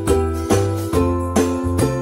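Background music with a steady beat: pitched, bell-like notes over a bass line, changing about twice a second.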